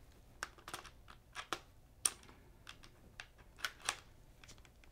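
Faint, irregular clicks and taps, about ten, from hands handling a camera rig and trying to swivel the small on-camera monitor on its mount.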